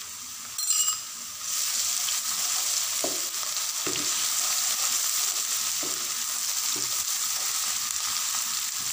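Ginger-garlic paste and browned onions sizzling in hot oil in a frying pan as they are stirred and fried with a slotted spatula. The sizzle jumps louder about a second and a half in and stays steady, with a few soft knocks of the spatula against the pan.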